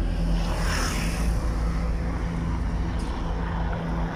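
A steady low engine drone, with a brief rush of wider noise about a second in.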